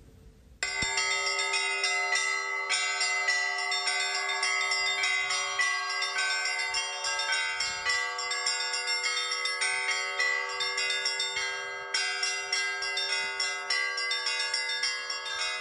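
Russian Orthodox church bells rung by hand from one wooden belfry: a continuous peal of quick strikes on several small bells over the steady hum of a larger bell. The peal starts about half a second in and breaks off briefly about twelve seconds in.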